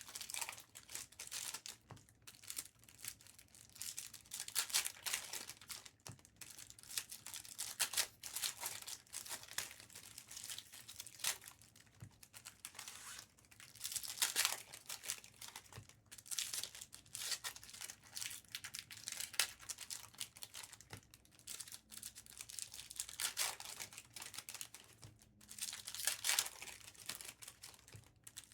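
Trading-card pack wrappers being torn open and crinkled, in repeated irregular bursts of rustling.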